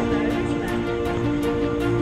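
Background music with long held chords and light ticking percussion.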